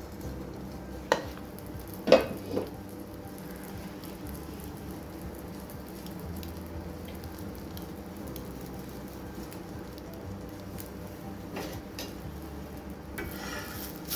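Food frying and sizzling steadily in a pan, with a few sharp knocks of a utensil against the pan, three in the first few seconds and two more later, and a brief scrape of stirring near the end.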